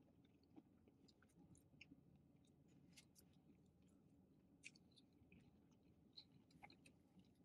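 Very faint chewing and mouth clicks from someone eating fried chicken, irregular soft clicks scattered through near silence.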